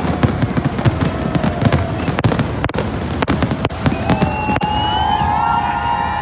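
Fireworks going off in a rapid string of bangs and crackles, which thin out after about four seconds as steady high-pitched tones take over.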